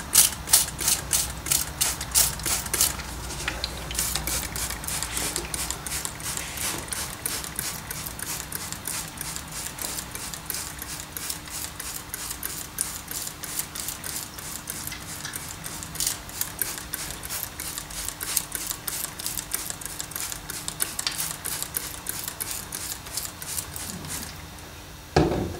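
Hand-held trigger spray bottle pumped over and over, a quick clicking spritz about three or four times a second with a brief pause about three seconds in. It is wetting the scenery gravel with water before the diluted PVA glue goes on.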